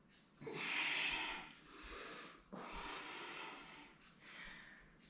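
A woman breathing hard under exertion, close to a clip-on microphone: about four noisy breaths in a row, the first the loudest.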